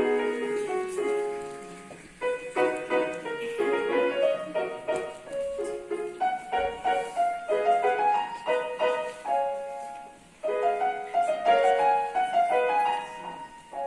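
Piano playing a short étude in separate struck notes, mostly in the middle range, pausing briefly about two seconds in and again about ten seconds in.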